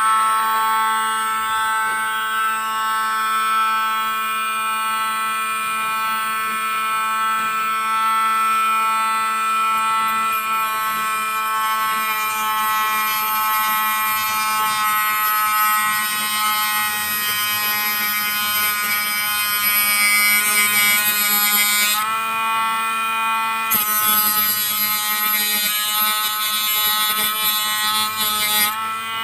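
Small handheld electric rotary tool with a cutting disc switched on and running with a steady high-pitched whine. Its pitch dips briefly about 22 seconds in and again near the end, while the spinning disc is held against the paper part.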